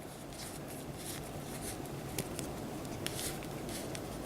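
Faint handling noise of a Gamera toy figure being turned over in the hands: scattered soft rustles and light ticks at irregular moments.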